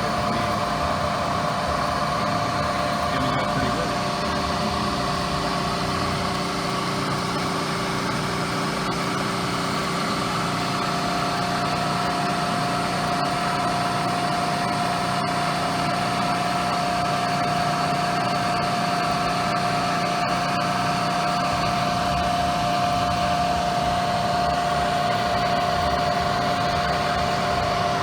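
Bridgeport milling machine running steadily with a shell mill cutting a steel plate: a continuous mechanical hum with several held tones.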